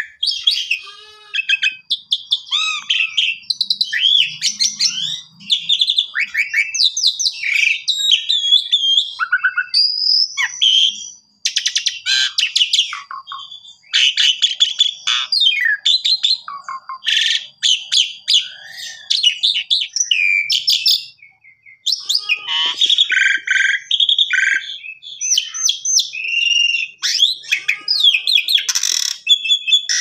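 Asian pied starling (jalak suren) singing a long, varied song of whistles, chatter and harsh rasping notes, rich in imitated phrases, broken by brief pauses about 11 and 21 seconds in. A thin, steady high whistle is held under the song for several seconds near the middle.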